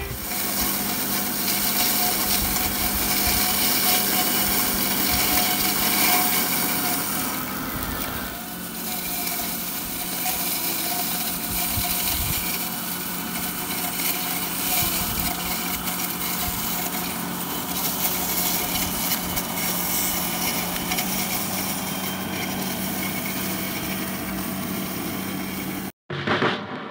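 RC scale model MB trac tractor driving through grass with its front mower running: a steady mechanical whirr of the drive and the spinning mower cutting grass.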